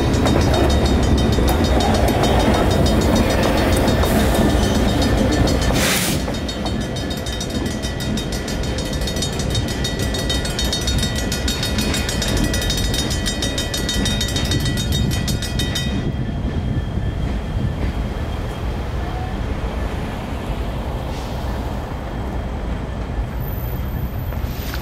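Freight cars of a slow train rolling over the crossing with a heavy rumble, the mechanical crossing bells ringing rapidly over it. About six seconds in there is a sharp clank and the rumble drops. The bells keep ringing until they cut off about 16 seconds in, which marks the crossing signals switching off after the train has cleared.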